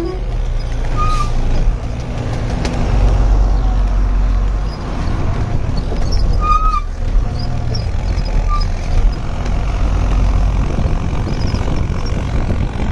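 Truck engine running steadily as the truck drives along, a deep rumble that rises and falls with the throttle. Two brief high chirps sound over it, about a second in and again past the middle.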